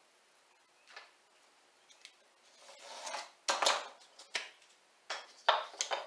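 Utility knife cutting through a balsa wood plank in a few short scraping strokes, with a sharp click about four seconds in as tools are handled on the wooden workbench.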